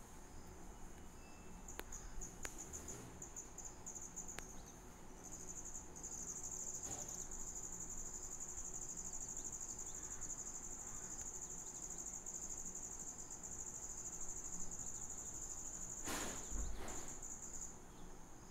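Insects trilling steadily in the background: one high-pitched, finely pulsing trill that grows louder about six seconds in. A few faint clicks come in the first seconds, and a brief bump comes near the end.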